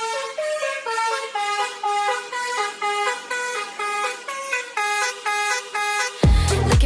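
Dance-pop intro: a tune played in short car-horn honks, stepping from note to note every quarter to half second. About six seconds in, a heavy kick-drum beat comes in.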